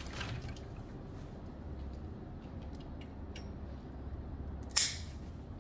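Plier-style dog nail clippers cutting through a toenail: one sharp snap near the end, after a couple of faint clicks.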